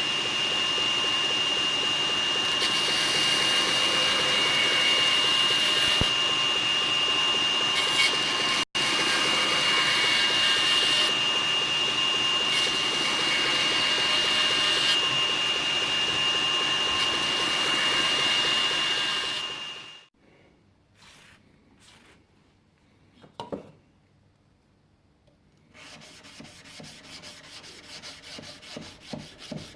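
A power sander runs steadily with a constant high whine for about twenty seconds, then stops abruptly. After a few light knocks, quick rubbing strokes of hand sanding start near the end.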